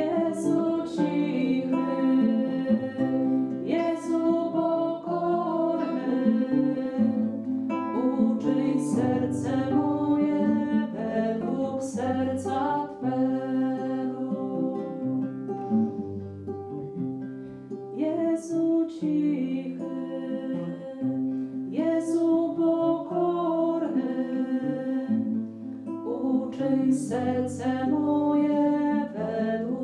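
Acoustic guitar played as accompaniment to women's voices singing a hymn.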